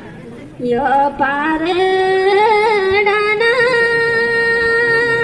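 A solo singer with a microphone, heard through the stage loudspeakers. After a brief hush, a slow, ornamented melodic line with wavering pitch comes in, then settles into one long held note through the second half.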